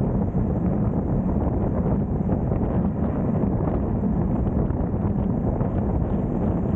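Steady wind rushing over the microphone on a moving vehicle, mixed with road and traffic noise.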